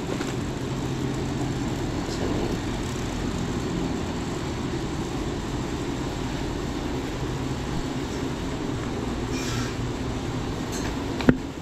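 Steady low rumble and hum of indoor machinery such as air conditioning, with one sharp click near the end.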